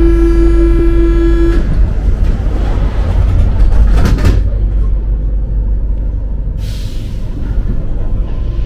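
Alstom MP-05 metro train's low, steady rumble. Over it, a steady pitched signal tone ends about a second and a half in. A brief sharp clatter comes about four seconds in, then a short hiss near seven seconds.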